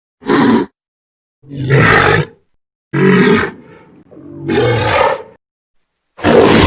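Dragon sound effect built from animal-like roars and growls: four short separate roars with silent gaps between them, then a louder one begins near the end.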